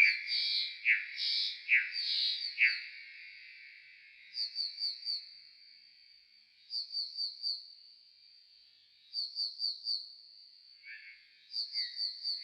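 Common nightingale song slowed down four times. It opens with a loud run of strong, evenly spaced notes for the first three seconds. After that come short groups of four quick notes roughly every two and a half seconds over a thin steady high tone, and a lower, softer phrase near the end.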